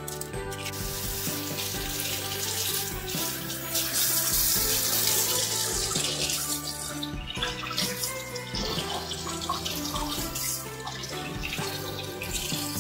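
Kitchen faucet running, water splashing into a stainless steel sink, over background music.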